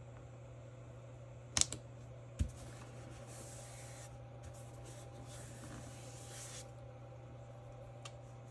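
Paper being handled at a desk while sticking a piece into a scrapbook journal: two sharp taps about a second and a half and two and a half seconds in, then a few seconds of soft paper rubbing as it is pressed and smoothed down.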